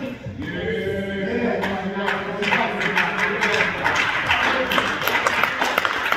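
Church congregation singing without accompaniment, then from about two seconds in many people clapping along, the clapping growing louder toward the end.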